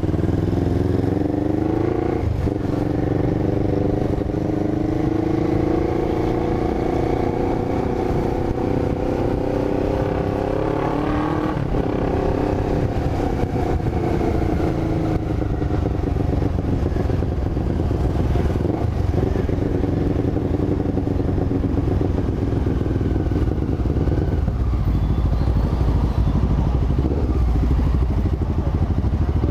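Honda CB500 parallel-twin engine running under way, its pitch climbing slowly for about ten seconds, then falling away after a brief jump, over a steady low rumble.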